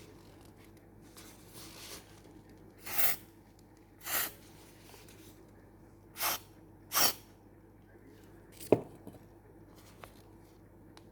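Four short hissing bursts, each about a third of a second, the last two close together, followed a second and a half later by one sharp click.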